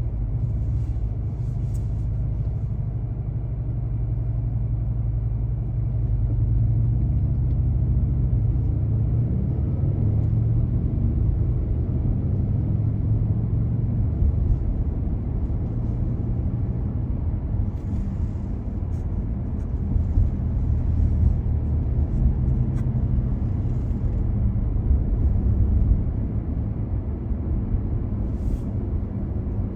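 Car driving through city streets: a steady low rumble of engine and road noise, with a few faint clicks.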